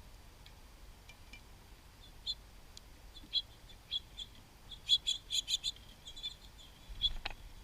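Small songbirds at a backyard feeder giving short, high chirps, scattered at first and then coming in a quick cluster about five seconds in, with one fast falling note near the end.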